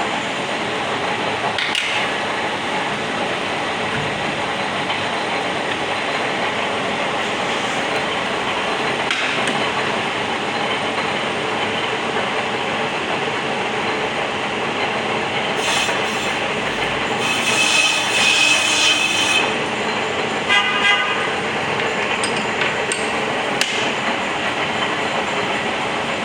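Brake disc rotor being turned on a manual lathe, the cutting tool skimming the cast-iron face with a steady grinding hiss that resurfaces the disc to cure its noise. A horn-like tone sounds for about two seconds past the middle, and briefly again just after.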